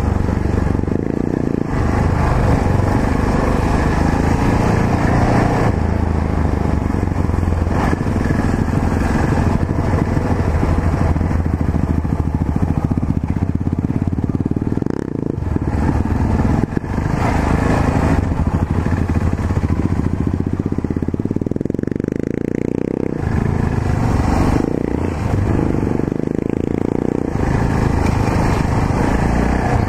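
Yamaha XT660Z Ténéré's single-cylinder engine running steadily as the motorcycle is ridden, its level dipping briefly twice around the middle before picking up again.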